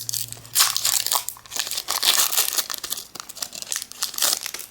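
Pokémon booster pack packaging crinkling as it is handled: quick, irregular crackles of foil wrapper and plastic.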